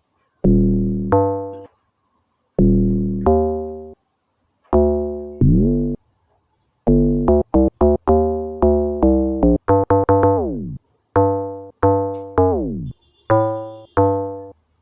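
Solo playback of a synthesized amapiano log drum: short pitched bass notes with sharp attacks that die away, in a syncopated pattern, several of them sliding down in pitch.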